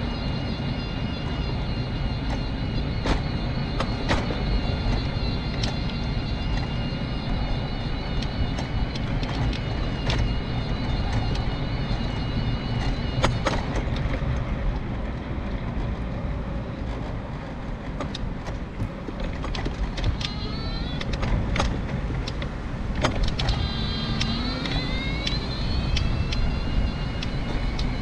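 Mobility scooter's electric motor whining steadily over low rumble from its wheels on rough, cracked tarmac, with sharp knocks as it goes over bumps and kerb edges. In the last third the whine twice sweeps up in pitch as the scooter speeds up again.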